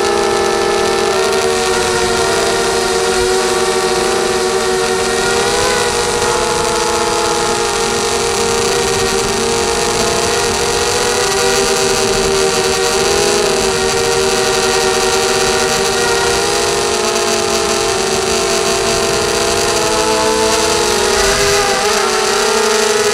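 ZMR250 mini quadcopter's SunnySky 2204 brushless motors and propellers whining in flight, heard close up from the onboard camera over a steady rush of air. The whine's pitch drifts up and down with the throttle and dips briefly a couple of seconds before the end.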